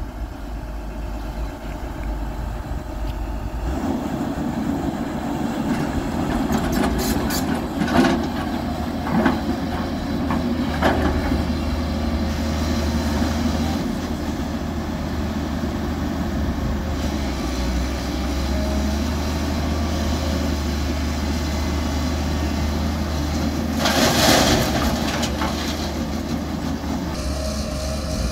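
Hyundai crawler excavator's diesel engine running steadily as it digs and loads a tipper truck. A few sharp knocks come about a third of the way in, and a louder brief clattering rush comes near the end.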